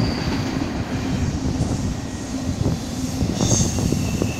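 Union Pacific double-stack container freight cars rolling past, a steady rumble with scattered wheel clacks. A steady high wheel squeal sets in near the end.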